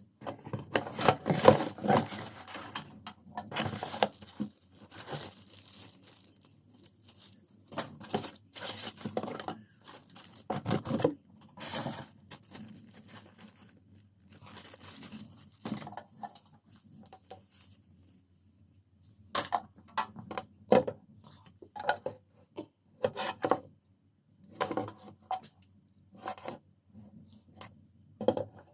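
Packaging being torn open and handled while a welding machine is unboxed: irregular bursts of tearing and crinkling with short pauses between them.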